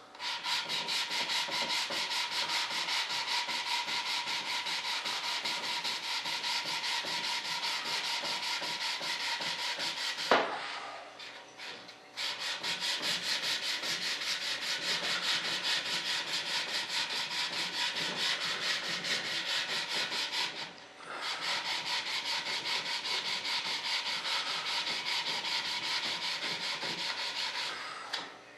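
Hand sanding with a sandpaper block on a filled model jet duct: quick, even back-and-forth strokes in three long runs with two short pauses. A single sharp knock about ten seconds in.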